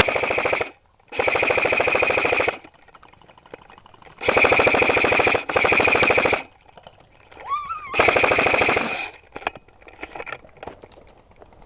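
Airsoft gun firing on full auto in five bursts, each lasting about a second or so, with short pauses between them.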